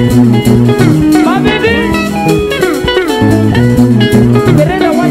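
Sungura band music: bright electric guitar lines with bent notes over a bass line and a steady beat.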